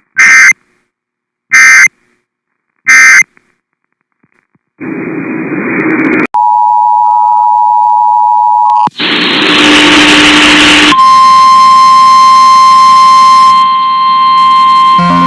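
Emergency Alert System signalling: three short, screechy data bursts about 1.5 s apart (the coded end-of-message). After a pause comes a moment of hiss, then the two-tone attention signal for about two and a half seconds. A burst of static follows, and then a single steady alert tone that holds.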